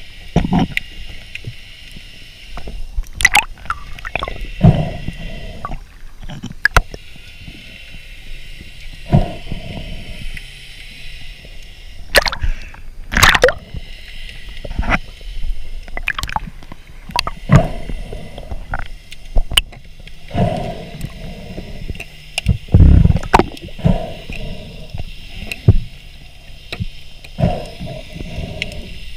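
Underwater sound picked up by a diver's camera: water noise with irregular knocks and clicks as gloved hands handle a giant rock scallop and push it into a mesh catch bag, with the heaviest thud about two-thirds of the way through.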